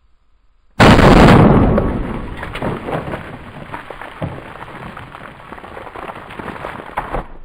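A 12-gauge semi-auto shotgun firing 3-inch magnum buckshot: one loud blast about a second in, trailing off over several seconds with scattered cracks and spatter, then cutting off suddenly near the end.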